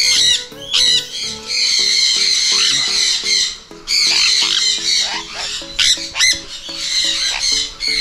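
Sun conures screeching over and over, loud and shrill, some calls short and sharp, others drawn out for a second or more, as one is caught and held by hand in a crowded wire cage.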